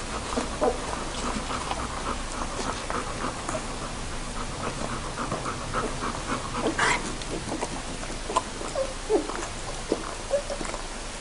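Two-week-old Bernese mountain dog puppies nursing: a steady patter of suckling and smacking with small squeaks, and one louder squeak about seven seconds in.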